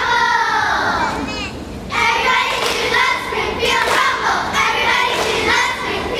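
Group of young girl cheerleaders shouting a cheer in unison, their voices echoing in a large gym.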